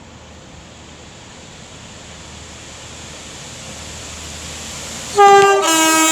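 Railhead treatment train's multi-purpose vehicle approaching, its rumble slowly growing louder, then sounding a loud two-note horn about five seconds in, a higher note followed by a lower one.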